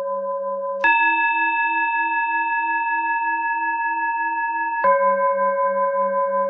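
Tibetan singing bowl tones ringing steadily with a wavering, beating low hum. About a second in, the low bowl tone switches abruptly to a higher bowl tone, the cue to breathe in, which holds for four seconds. It then switches back to the low tone, the cue to breathe out.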